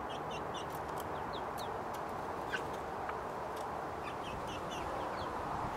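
Young chickens, pullets about seven weeks old, peeping in short high cheeps: a quick run of several near the start, a few scattered ones, and another run near the end, over a steady background hiss.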